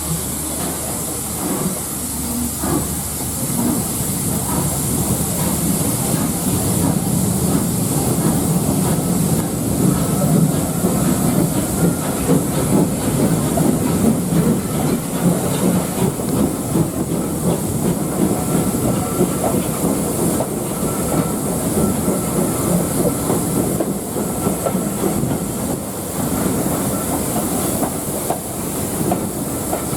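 Steam-hauled heritage train running along the track, its wheels clattering over the rails, with a steady hiss throughout; the rumble grows louder toward the middle and eases slightly near the end.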